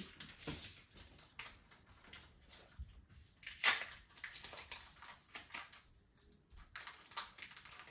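Irregular crinkling and crackling of a foil trading-card booster pack wrapper being handled, with one sharper crackle about three and a half seconds in.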